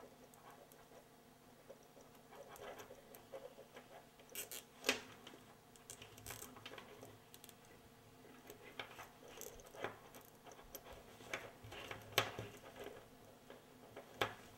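Faint rustling and scattered small clicks of a wiring harness's plastic-insulated wires and connector being handled and twisted together, with two sharper clicks about 5 and 12 seconds in.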